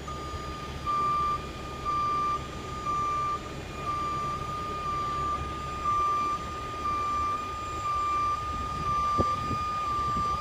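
Warning alarm beeping steadily about once a second, over the steady low running of a heavy-duty rotator tow truck's diesel engine while its boom holds a load. A single metallic knock comes about nine seconds in.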